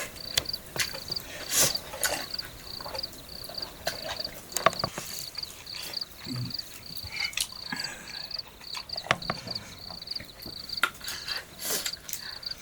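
An insect chirping in a high, even pulse, about three chirps a second, with scattered sharp clicks and knocks over it.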